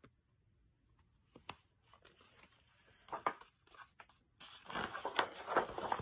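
Pages of a hardcover picture book being turned and handled: mostly quiet at first with a couple of soft taps, then a run of paper rustles in the last second or so.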